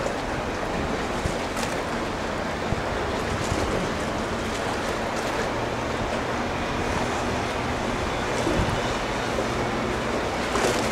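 Steady outdoor rushing noise of wind on the microphone, with a faint low engine hum underneath.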